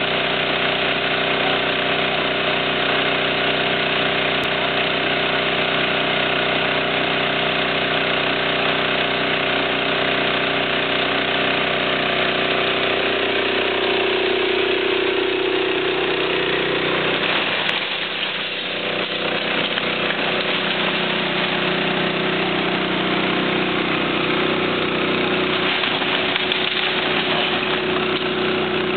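Hydraulic excavator's diesel engine running steadily while it tears down a wood-frame house, its pitch shifting a little. The sound dips briefly about two-thirds of the way through.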